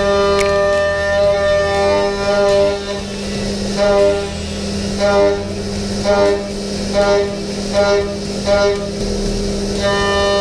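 5-axis machining center milling a metal block under flood coolant: a steady machine hum with a pitched cutting whine that swells and fades about once a second as the tool moves through the cut.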